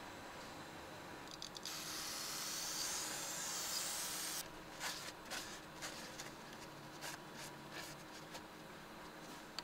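Aerosol cleaner sprayed through a straw nozzle onto the plastic intake manifold's gasket flange: a steady hiss from about two seconds in, lasting about two and a half seconds. It is followed by light rubbing and small clicks as the flange is cleaned by hand.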